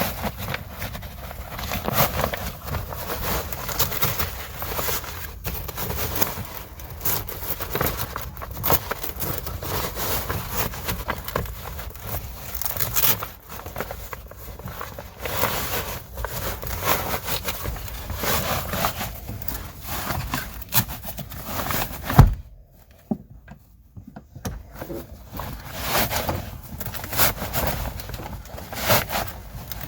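Fabric seat cover being tugged and worked onto a truck seat cushion: irregular rustling and scraping, with Velcro on the cover catching and crackling against the seat. One sharp knock about two-thirds of the way through, then a few quieter seconds.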